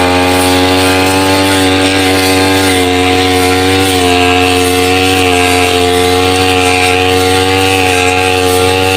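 Petrol grass cutter (brush cutter) engine running at a steady high speed, its pitch wavering slightly with a few small dips.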